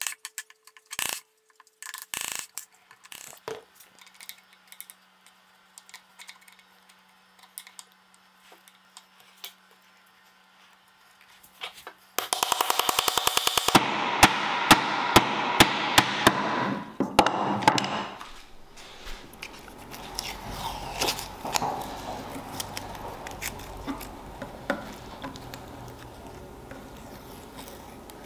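Hand woodworking at the bench: a few chisel taps and scrapes at the start, then about five seconds of loud scraping with sharp clicks in the middle. Near the end masking tape crackles as it is peeled off the wood.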